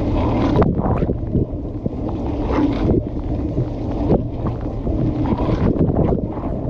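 Dishwasher running its wash cycle, heard from inside the tub: water from the spray arms splashing irregularly against the camera over a steady low hum.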